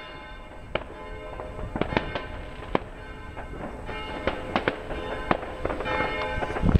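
Fireworks and firecrackers going off in scattered single bangs and crackles. Steady ringing tones at several pitches sound beneath them.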